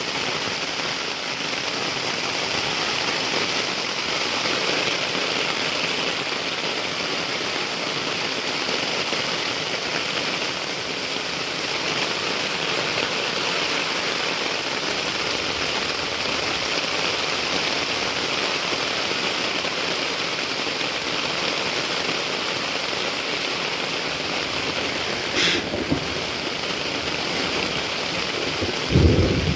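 Heavy rain falling steadily, a dense even hiss of rain on surfaces. Near the end a brief low rumble rises above the rain.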